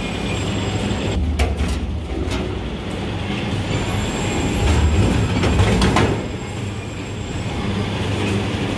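Steel-cage goods lift carrying a loaded rack running: a steady low motor hum with a few metal clanks and rattles from the cage in the first couple of seconds, and a louder stretch around five to six seconds in.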